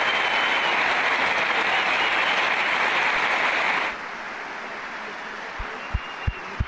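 Stadium crowd applauding loudly. The applause cuts off abruptly about four seconds in to fainter crowd noise, and near the end come low thumps, about three a second.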